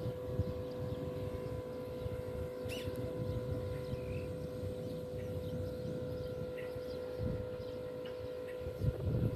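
Outdoor ambience: an irregular low rumble of wind buffeting the microphone, under a steady droning tone, with a few short bird chirps.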